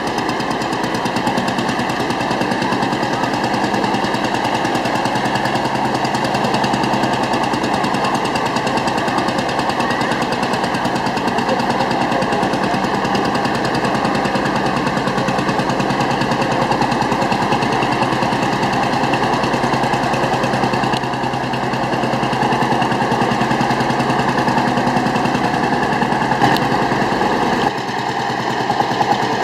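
A vintage engine running steadily with a fast, even knocking beat.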